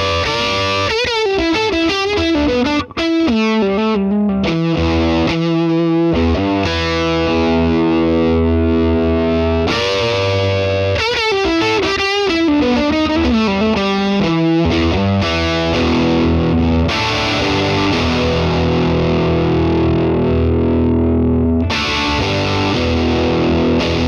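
Overdriven electric guitar played through an AnalogueTube × Standalone X Love Bomb preamp pedal with its power sag turned up. Single-note lead lines with string bends come first, then strummed chords that stop suddenly at the end.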